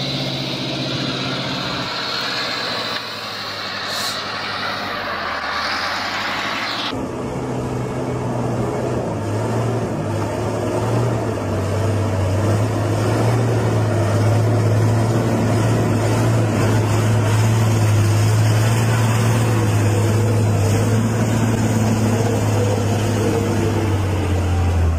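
Truck diesel engines running: first an old flatbed truck climbing a slope, its sound rising in pitch, then, after a sudden change about seven seconds in, a loaded red dump truck driving through mud with a steady deep engine drone that grows a little louder.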